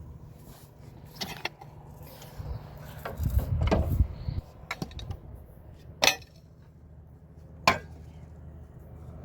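Knocking and handling of hard objects: a few light clicks, a louder low rumbling stretch a few seconds in, then two sharp knocks.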